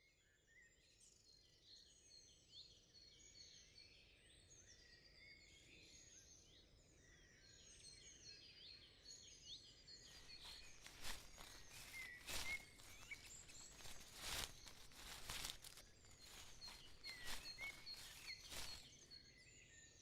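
Faint outdoor birdsong, many birds chirping and trilling, fading in. From about halfway, a string of sharp clicks or snaps joins in.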